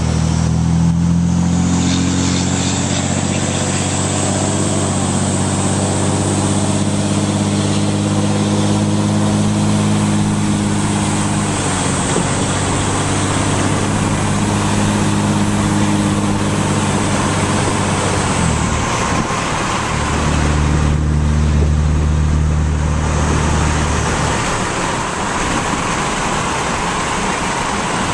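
A 2007 Dodge Cummins 5.9 L 24-valve diesel, straight-piped through a 4-inch exhaust with the silencer ring removed and breathing through a K&N intake, droning while driving, heard from inside the cab. About two-thirds of the way through the drone drops in pitch and grows louder for a few seconds, then eases off.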